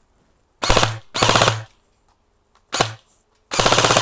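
Rapid automatic gunfire in four short bursts, each well under a second, with brief silences between; the last burst runs on past the end.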